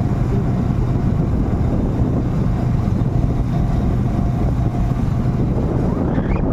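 A vehicle engine running steadily while on the move, a constant low hum under a rushing noise, with wind buffeting the microphone.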